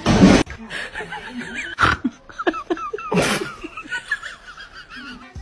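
A person laughing in short, high, wavering bursts, broken by sudden noisy bursts, the loudest at the very start.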